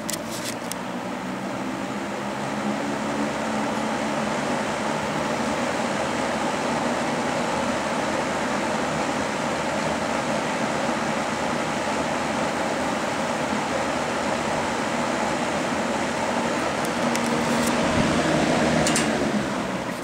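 GE W-27 two-speed box fan running: a steady rush of air from the blades over a low motor hum, building over the first few seconds and then holding even. A few faint clicks near the end.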